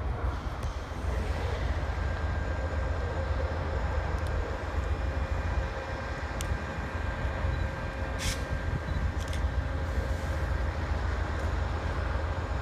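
Low, steady rumble from an Amtrak passenger train headed by two GE P42 diesel locomotives, with a faint steady whine over it. A few brief clicks come through, the clearest about two-thirds of the way in.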